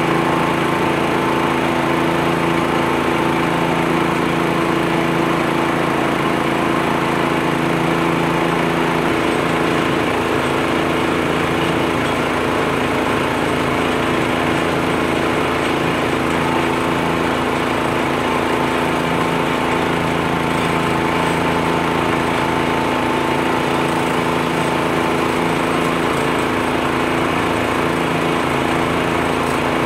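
U-Mount leaf blower on a John Deere 1025R compact tractor, running steadily at constant speed as it blows leaves, together with the tractor's engine.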